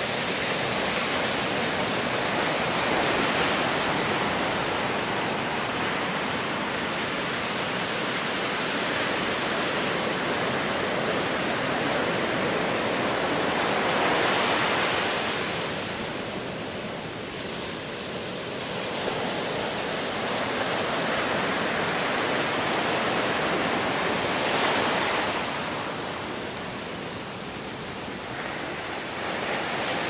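Ocean surf breaking and washing up a sandy beach: a continuous rush that swells with each wave and eases off briefly about halfway through and again near the end.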